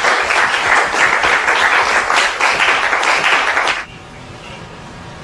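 Audience applause, many hands clapping together in a dense patter, which cuts off suddenly near the end and leaves only a faint steady hiss.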